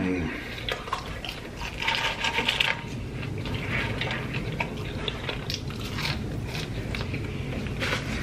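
Close-miked chewing of fried fast food, with wet mouth clicks and crackles, and a louder burst of crackling about two seconds in as gloved fingers pick through the fried food on the tray.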